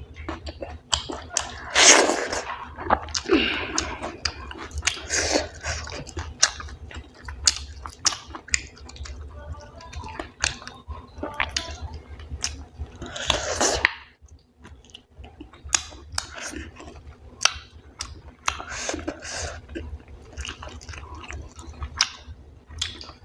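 Close-miked chewing and wet mouth sounds of a person eating wheat dhido with chicken curry: irregular smacks and clicks, with a short lull about two-thirds of the way through.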